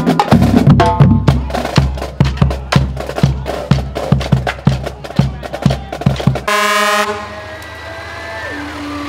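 Marching band drumline playing a rhythmic street cadence, with deep bass drum strokes and snare hits. About six and a half seconds in, the drums cut off and a propane delivery truck gives one short horn blast, followed by the truck's engine running as it rolls past.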